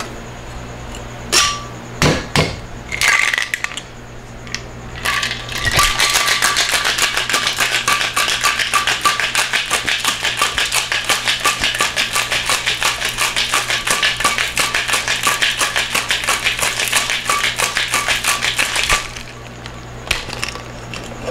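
A few clinks and knocks as ice goes into the mixing glass and the metal tin is fitted on, then a cocktail shaker full of ice shaken hard for about thirteen seconds: a fast, even rattle of ice against the metal tin that stops abruptly near the end.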